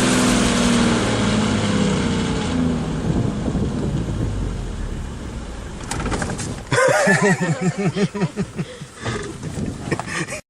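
A four-wheel-drive vehicle's engine runs, its pitch falling slowly over the first few seconds, then settles into a steady rumble. Near the end come quick, repeated voice-like cries that rise and fall, about three a second.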